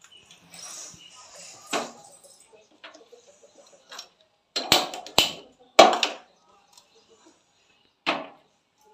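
Sharp clicks and clanks as a gas stove is lit with a handheld lighter and an aluminium pot is handled on the burner: a cluster of three loud strokes about halfway through and another clank near the end.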